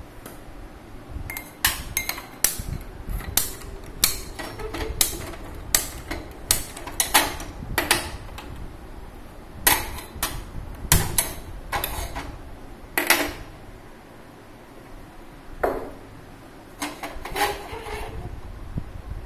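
Irregular sharp knocks and clinks of steel kitchen utensils and vessels being handled on a countertop, about two dozen over the stretch, with a short lull after the middle.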